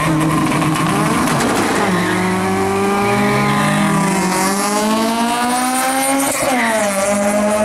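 Car engine accelerating hard on a drag-race run: its pitch climbs steadily for several seconds, drops sharply at a gear change about six seconds in, then climbs again.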